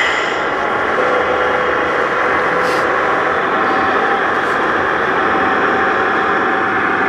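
Radio-controlled scale model coach driving slowly, with a steady vehicle-like running sound over the constant din of a busy exhibition hall.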